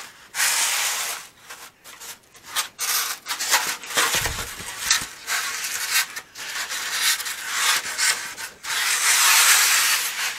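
Foam wing cores rubbing and scraping against each other and against their foam beds as they are lifted and slid apart. The rubbing comes in a series of strokes with short pauses, the longest and loudest near the end, with a dull low bump about four seconds in.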